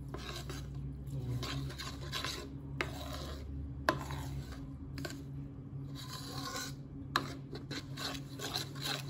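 Metal spoon stirring chia seeds and coconut milk in a ceramic bowl, scraping round the bottom in repeated strokes. There are a few sharp clinks of the spoon against the bowl.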